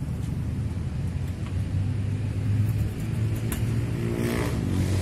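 Low, steady rumble of a vehicle engine running.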